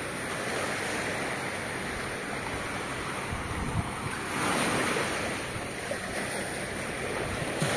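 Gentle surf washing onto a sandy shore, with wind on the microphone; a louder rush of water comes about four and a half seconds in.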